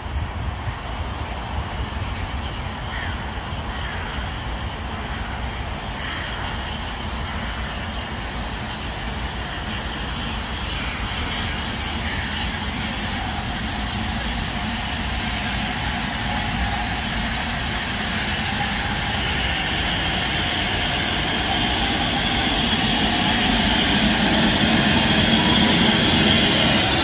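LMS Black Five 4-6-0 steam locomotive approaching and running past, its noise growing steadily louder until it is passing close alongside near the end.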